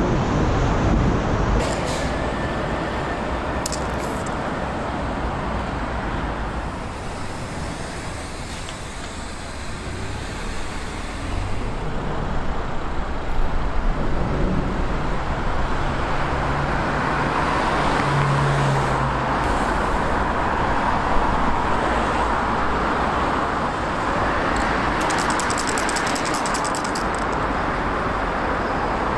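Road traffic passing on a multi-lane road: a continuous rush of tyre and engine noise that swells and fades as vehicles go by, with a low engine hum about two-thirds of the way through.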